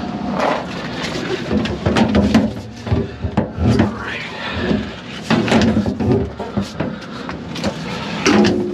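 Irregular knocks and metallic clunks with rustling, as the valves and fittings in a milk tanker's rear pump cabinet are worked by hand.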